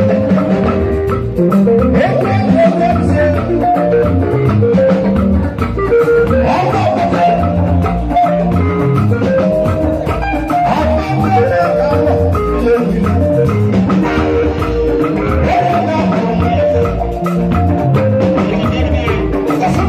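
Live highlife band music with drum kit and keyboard, playing a steady beat over a bass line.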